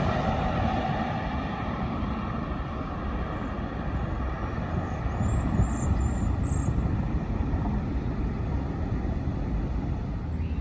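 Jet airliner noise fading away after it passes, settling into a steady low rumble.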